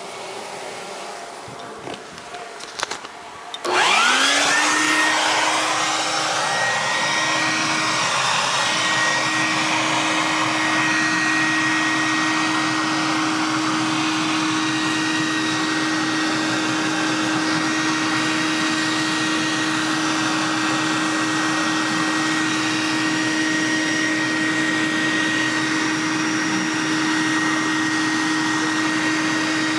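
Honey bees buzzing, with a few clicks, then about four seconds in a vacuum switches on. Its motor spins up with a rising whine and settles into a loud, steady rush with a constant whine while it sucks the bee cluster up through a corrugated hose.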